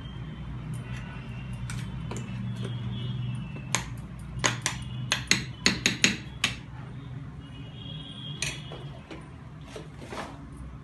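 A steel spoon clinking against a stainless steel mixer-grinder jar: a quick run of sharp metallic taps about four seconds in, then a couple more later, over a low steady hum.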